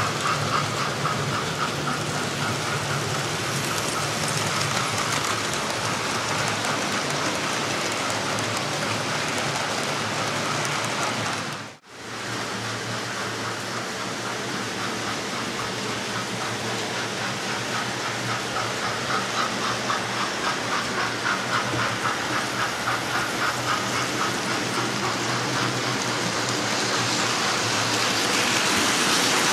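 Several model trains running around a layout at once: a steady whirring rattle of motors and wheels, with fast clicking over the rail joints. The sound drops out for a moment near the middle.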